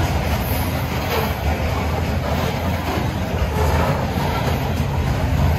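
Freight train of covered hopper cars rolling past: a steady rumble of steel wheels on the rails.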